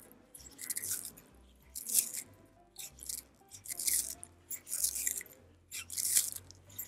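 A tortoise biting into and chewing a piece of fruit, with crisp crunching bites about once a second.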